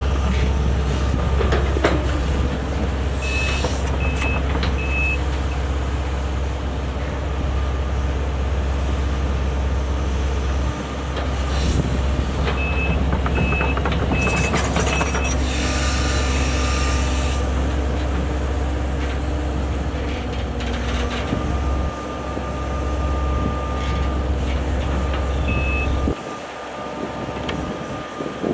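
Case CX130D long-reach excavator's diesel engine running steadily under hydraulic load as it works the boom and bucket, with a whine from the hydraulics and a brief hiss about halfway through. Short high warning beeps sound in a group of three early on, a group of four mid-way, and once more near the end.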